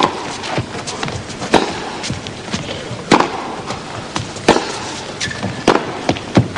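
Tennis rally: the ball struck back and forth by rackets, five sharp hits about one and a half seconds apart with softer knocks between them, over a steady crowd and court hush. A brief high squeak near the end.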